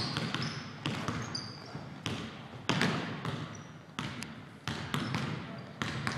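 Basketball bouncing on a hardwood gym floor, dribbled in irregular bounces about every half second, each with a short echo in the gym. Brief high squeaks of sneakers on the court come through in the first few seconds.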